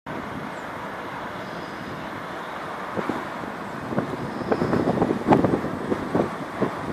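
Steady hum of distant city road traffic heard from high above the streets, with a run of short, irregular knocks or bumps from about three seconds in.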